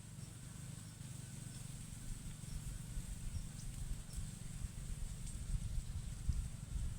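Outdoor ambience: a low, uneven rumble that grows louder toward the end, with a few faint short bird chirps and a steady high insect whine.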